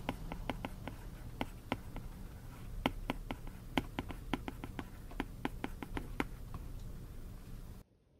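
Apple Pencil tip tapping on an iPad's glass screen while handwriting: a quick, irregular run of sharp clicks as each stroke of the characters is made. The clicks stop about six seconds in, and the sound cuts to near silence near the end.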